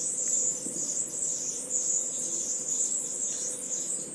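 Onion-tomato masala sizzling in hot oil in a frying pan while it is stirred with a spatula: a steady high hiss that swells and fades with the stirring.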